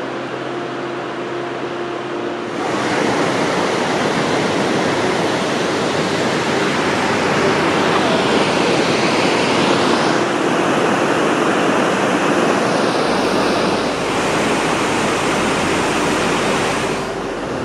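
White water of a mountain stream and waterfall rushing steadily. It gets suddenly louder about two and a half seconds in and shifts a little a couple of times.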